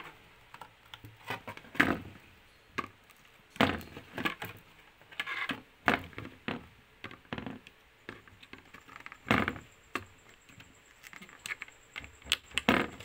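Scattered clicks and knocks of a CPU cooler and its fan cable being handled and fitted onto a motherboard, hard plastic and metal parts tapping together at irregular intervals.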